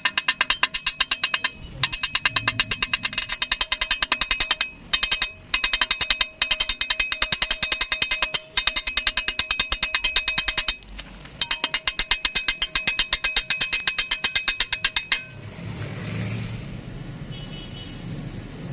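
Rapid, even metallic strikes with a ringing tone, in runs broken by short pauses. They stop about fifteen seconds in, and a softer rubbing sound follows.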